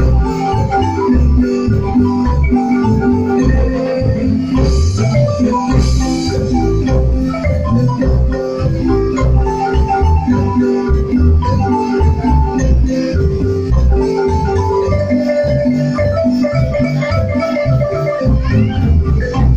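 Loud marimba dance music with a bass line and a steady beat.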